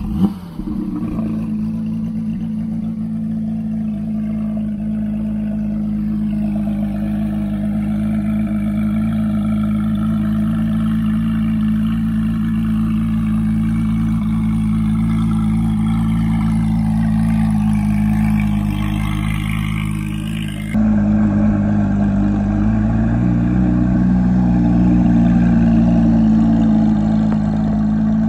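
Car engine idling steadily. About three-quarters of the way in, the sound cuts abruptly to a slightly louder idle, whose note lifts a little soon after.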